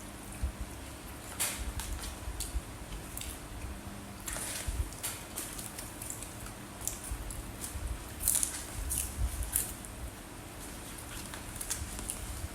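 Irregular light clicks and crackles of crisp bánh xèo and fresh vegetables being handled and eaten, over the steady hum of an electric fan.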